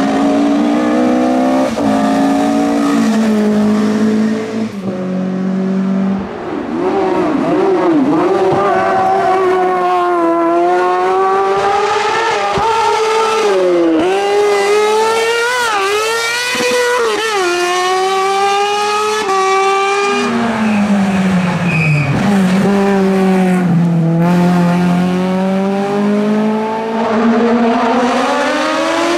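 Hillclimb race car engine at full effort, revs climbing and falling again and again through gear changes and corners, loud throughout.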